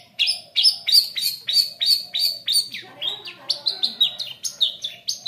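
Long-tailed shrike (cendet) calling in a run of sharp, repeated notes, about three a second, turning quicker and more varied about halfway through.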